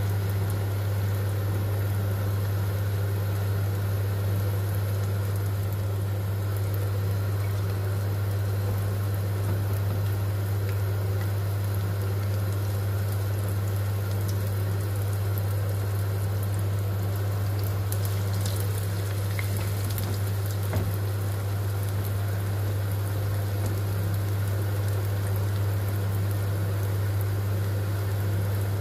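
Cauliflower zeppole, yeast-dough fritters, frying in a pan of hot seed oil: a steady sizzle and bubbling of the oil around the dough. Under it runs a steady low hum, louder than the sizzle.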